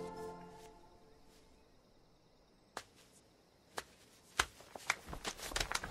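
Music fading out, then quiet, then scattered sharp taps that come quicker and quicker near the end.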